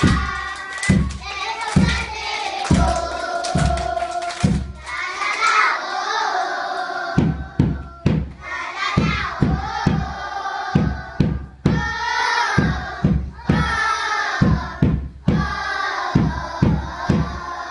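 A group of young children singing a song together, clapping their hands in time at about two claps a second.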